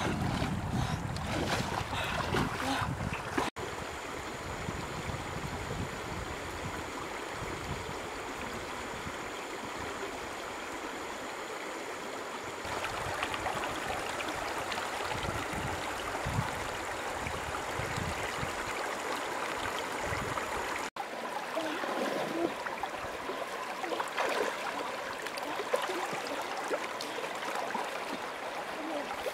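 Shallow river water flowing and rushing over rocks. Louder splashing in the first few seconds as legs wade through the water.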